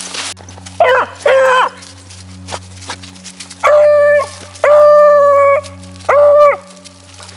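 Beagle baying loudly in five pitched calls: two short ones, then three longer calls held level. This is a rabbit hound giving voice as it works a rabbit's scent.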